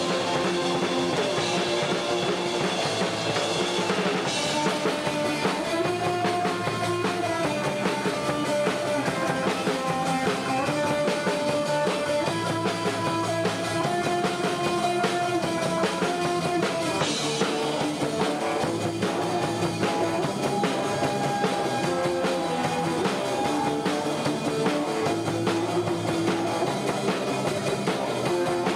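Punk band playing live: a drum kit with cymbals pounding under electric guitar chords, continuous and loud.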